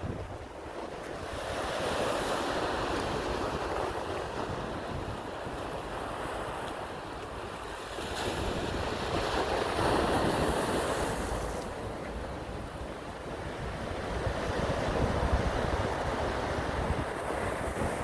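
Small sea waves breaking and washing over a flat rock shore, the hiss of the surf rising and falling in slow surges, with wind buffeting the microphone.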